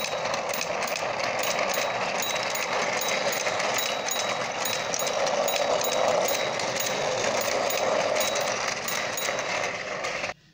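Battery-powered plastic toy trains running on plastic track: a steady mechanical whir and rattle of their motors and wheels, which cuts off suddenly near the end.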